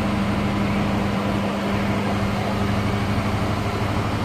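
Engine of a parked emergency vehicle idling, a steady low hum that does not change.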